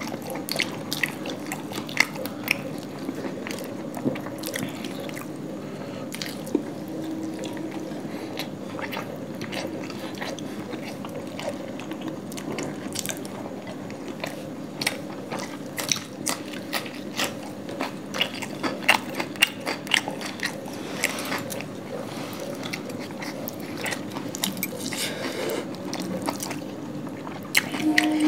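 Close-up chewing and biting of two people eating paratha and chicken curry by hand, with many small clicks, taps and tearing sounds scattered throughout over a steady low hum.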